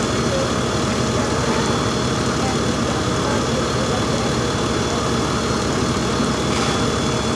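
Fire apparatus diesel engine running steadily, driving the pump that feeds the aerial ladder's water stream: a continuous, even drone.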